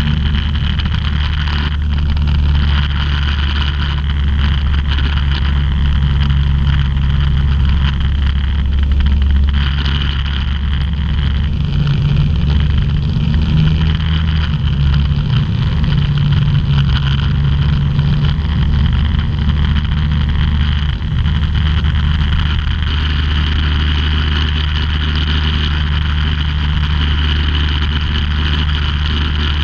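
Microlight aircraft's engine and propeller running steadily in flight, heard from inside the cockpit together with rushing air. The engine note wavers and shifts between about 11 and 21 seconds in, then settles back to its steady drone.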